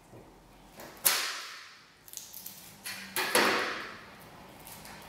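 Kitchen knife cutting the ends off a garlic clove and striking a stainless-steel worktop. There is a sharp knock about a second in, a few light clicks, then another knock a little after three seconds, each ringing out slowly off the metal.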